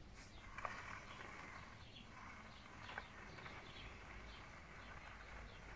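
Near silence: quiet outdoor background with faint, distant bird chirps and a couple of soft clicks.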